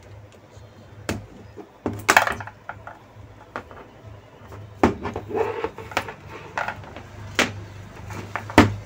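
Plastic washing-machine control-board housings being handled and set down on a workbench: scattered clicks and knocks of plastic on plastic and on the bench, with a steady low hum underneath.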